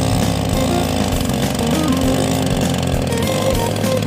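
Two-stroke chainsaw engine, converted to drive a speed boat, running steadily at speed.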